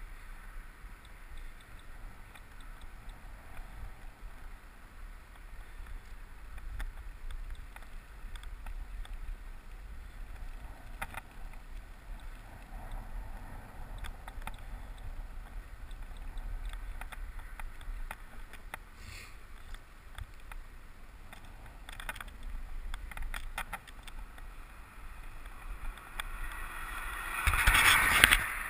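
Riding noise from a bicycle rolling on a tarmac road, picked up by a camera mounted on the bike: a steady low rumble with a hiss of wind and road noise and a few small rattles. The noise swells sharply near the end.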